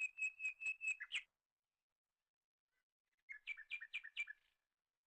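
A bird calling a rapid series of short, high notes, about five a second, ending with a louder note about a second in. After a pause of about two seconds comes a shorter run of four harsher notes.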